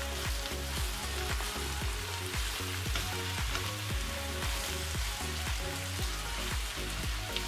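Finely chopped vegetables sizzling steadily in a non-stick frying pan as they are stirred and tossed with a silicone spatula.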